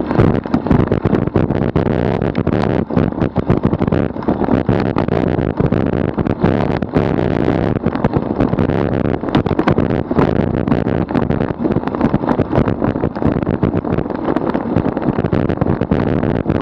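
Wind rushing over the microphone and tyre and road noise from a bicycle rolling at about 35 km/h on coarse asphalt, broken by frequent short knocks and rattles from bumps in the road.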